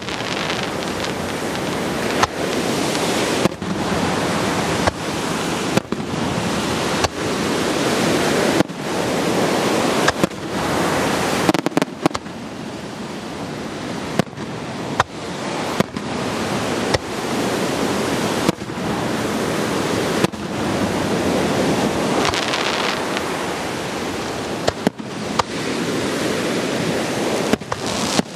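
Aerial fireworks shells bursting overhead, a sharp bang every second or so over a continuous dense rushing noise.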